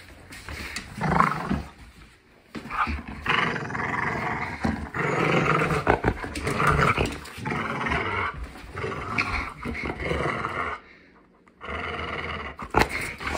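A Labrador-hound mix dog growling in play as it tugs on a rope toy, in long rough growls broken by short pauses, with a brief lull before the growling picks up again near the end.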